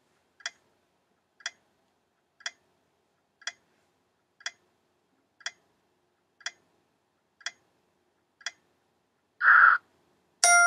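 A countdown-timer sound effect ticking once a second, nine ticks. About nine and a half seconds in there is a short, louder noisy burst, and at the very end a bright chime starts ringing as the time runs out.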